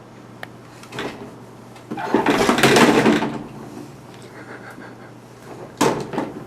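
Dishwasher door and rack being handled: a few sharp knocks and, about two seconds in, a louder rattling clatter lasting just over a second.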